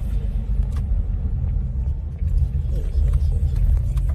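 Low rumble of a car driving slowly, heard from inside the cabin, with a few light clicks.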